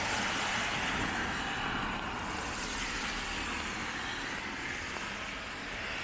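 Steady hiss of road traffic on a wet road, easing off slightly toward the end.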